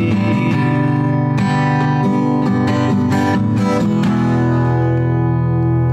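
Acoustic guitar strumming chords, then a final chord struck about four seconds in and left to ring out.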